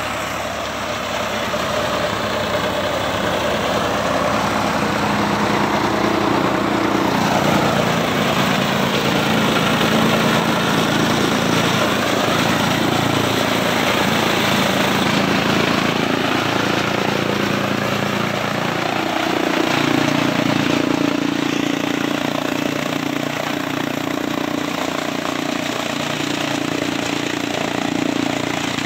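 Engine-driven chaff cutter with a blower running steadily while green maize stalks are fed in, chopped and blown out through its delivery pipe.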